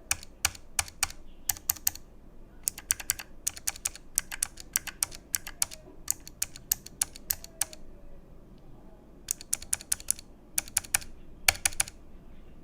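Keys on a Keychron K1 low-profile mechanical keyboard with blue clicky switches, pressed in short groups of sharp clicks with pauses between them. This compares the enter key, which feels mushy, more like a brown switch than a blue, with the keys beside it.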